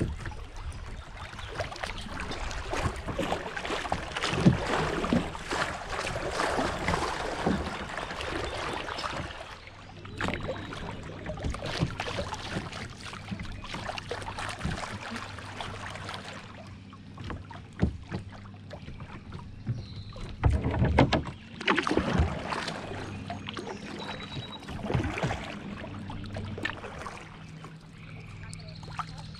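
Kayak paddle strokes dipping and splashing in the water, with water rushing along the hull, in irregular bursts; busiest in the first third and again about two-thirds of the way through.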